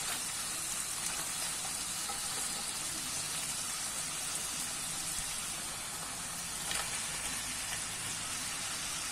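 Chicken livers sizzling gently in oil in a frying pan over low heat, with a light knock about two-thirds of the way through.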